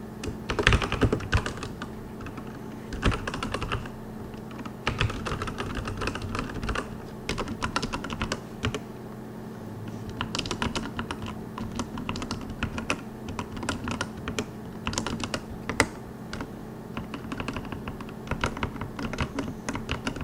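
Typing on a RAKK ILIS mechanical keyboard with linear Outemu Red switches and PBT keycaps: dense runs of key clicks and clacks broken by short pauses.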